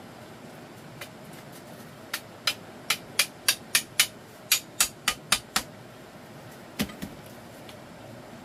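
Repeated sharp blows of a hand tool striking: about a dozen quick knocks at roughly three a second, then a pause and one heavier knock.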